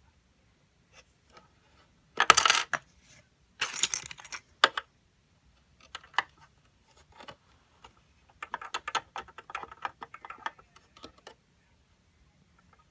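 LEGO vending machine mechanism being worked by hand: plastic bricks clacking and rattling, with a coin clattering in. Two clattering bursts come about two and three and a half seconds in, then single clicks, then a run of rapid small rattling clicks for about three seconds near the end.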